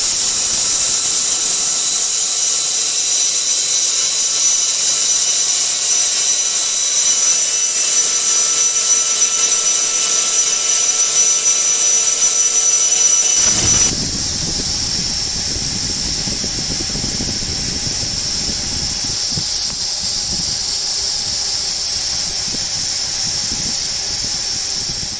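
Urschel Comitrol Model 1700 mill running at speed while milling desiccated coconut: a steady high-pitched whine with hiss. About halfway through the sound changes abruptly, with a lower rumble joining and the whine shifting in pitch.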